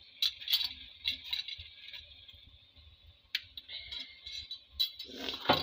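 Wood fire crackling under a clay cooking pot: scattered sharp pops and snaps over a steady hiss, with a louder clatter near the end.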